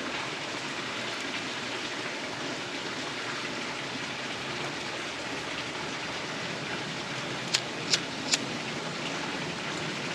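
Small fire burning with a steady crackle, with three sharp pops in quick succession about three-quarters of the way through.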